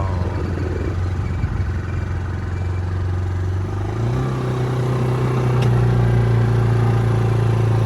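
ATV engine running under way, its pitch stepping up about four seconds in as it speeds up, then holding steady.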